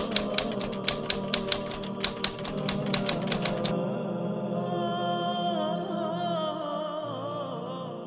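Typewriter-style key clicks, quick and uneven, as a text effect, stopping a little before halfway. Under them sustained background music, held tones with a wavering melody, which carries on alone and begins to fade near the end.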